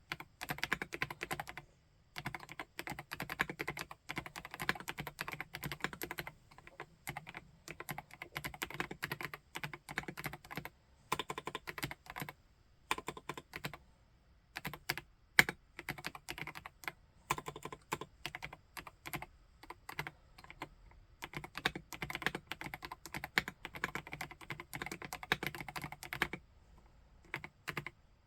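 Typing on a PK x BIOI Command 65 custom 65% mechanical keyboard: quick runs of keystrokes broken by short pauses every few seconds.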